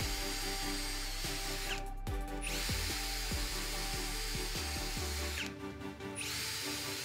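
Denzel cordless drill-driver running as it drills small holes in a wooden board, with a nail whose head has been cut off serving as the bit. The motor stops briefly about two seconds in and again near the end. Background music plays underneath.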